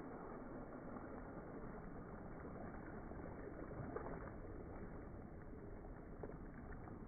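RC International Scout II scale truck churning slowly through a muddy puddle, with a steady low sloshing of water and a few faint clicks.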